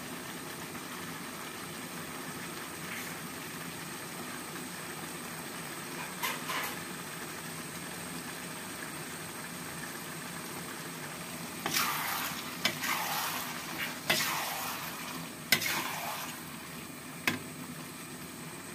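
Chili sauce with potatoes and chicken liver sizzling and simmering in a wok. In the second half a metal spatula stirs and scrapes through it, with several sharp clinks against the wok.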